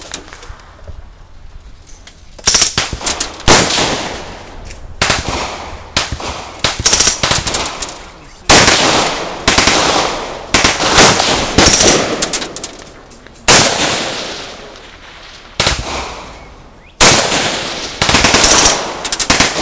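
Smith & Wesson Model 76 9mm submachine gun firing on full auto: a string of short and longer bursts of rapid shots with short pauses between them.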